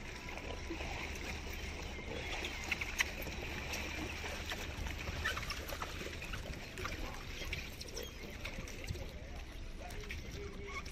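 Outdoor fishing-harbour ambience: a steady low rumble with faint scattered background sounds, and two sharp clicks about three seconds in.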